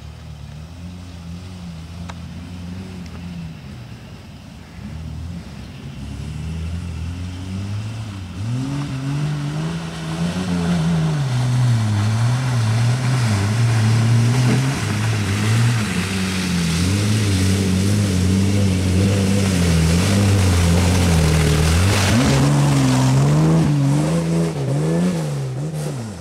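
Engine of a Willys Rural utility wagon revving as it climbs a muddy off-road trail, its pitch rising and falling with the throttle. It grows louder as it approaches, revs up hard about four seconds from the end, then fades as it passes and pulls away.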